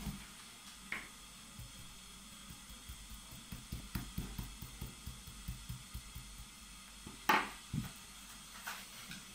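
Quiet handling sounds from painting work: a run of soft taps, then one louder knock about seven seconds in and a smaller one just after.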